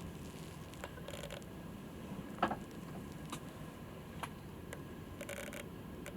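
Camera shutter firing in short rapid bursts, once near the start and again about five seconds in, with scattered single clicks and a louder knock about two and a half seconds in, over steady low background noise.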